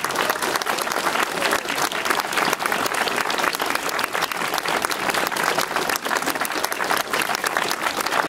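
A crowd of onlookers applauding, many hands clapping in a dense, steady patter.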